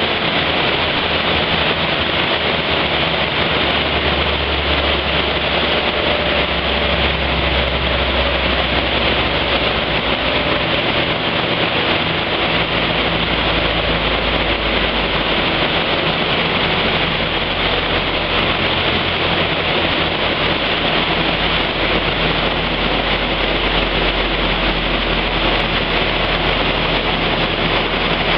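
Hatchback's engine, fitted with a cone air filter, running steadily under load on a chassis dynamometer as its driven wheels spin the rollers, under a loud even rushing noise. The engine note shifts a little lower a little under halfway through.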